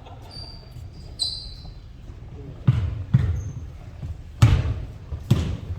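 Basketball bouncing on a gym floor, four loud bounces at uneven intervals in the second half, with a few short high squeaks near the start.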